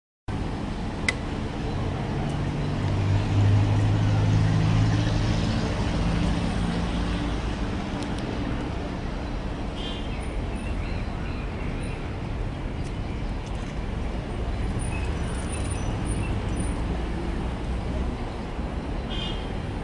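Street traffic: a continuous rumble of passing vehicles, swelling around three to six seconds in.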